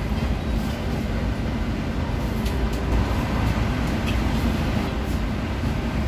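City bus heard from inside the passenger cabin while driving: steady low engine and road rumble.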